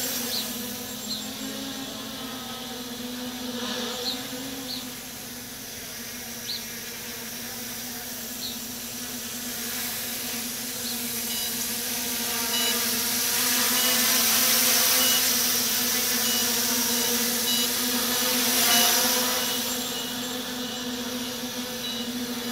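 MJX Bugs 6 quadcopter running on swapped-in brushless Bugs 3 motors, its propellers giving a steady, insect-like buzzing hum as it lifts off and flies. The hum grows louder about halfway through as the drone climbs, then eases off near the end.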